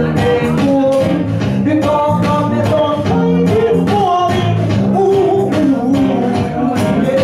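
A live rock duo plays amplified electric guitars with a steady strummed beat while a man sings a melody into a microphone.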